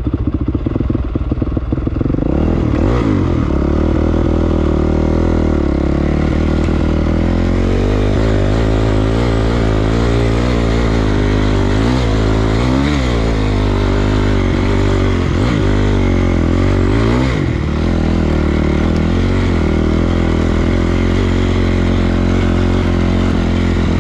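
Single-cylinder Honda CRF dirt bike engine running at low speed, its revs rising and falling several times in the middle stretch as the throttle is blipped, steadier before and after.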